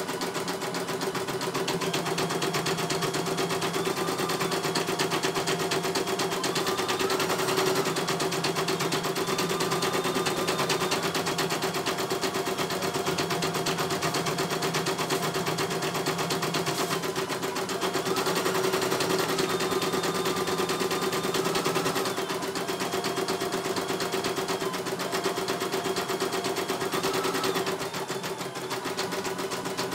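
CNY E900 computerized embroidery machine stitching a design: the needle clatters rapidly and evenly, with a whine that steps up and down in pitch. The sound dips briefly near the end.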